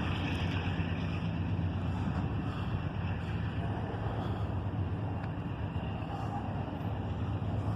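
Norfolk Southern freight train getting under way, pulled by its two front diesel locomotives while the rear two are shut down: a steady low rumble.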